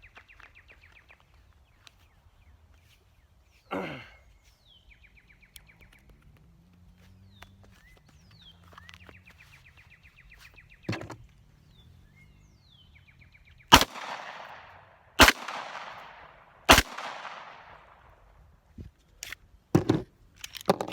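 Three 9mm pistol shots from a Gen 4 Glock 17, about a second and a half apart, each followed by a long echo.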